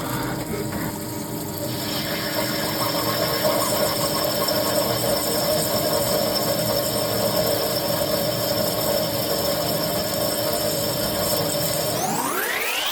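ARS 300T machine tool's electric motor and drive running at a steady speed with a mechanical whine, then speeding up near the end, its whine rising in pitch to a higher steady tone.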